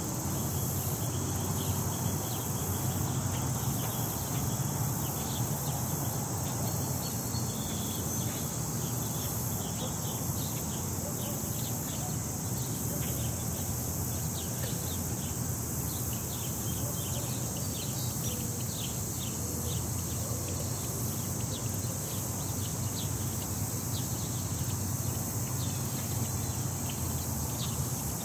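Wind rumbling on the microphone, with a steady high-pitched insect-like drone and many short chirps or clicks over it.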